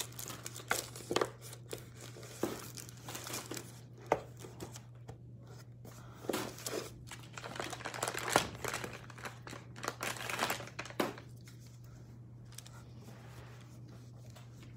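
Packaging crinkling and rustling in irregular crackles as it is handled and pressed, being forced shut because it won't close. The crinkling stops about eleven seconds in, leaving a faint steady low hum.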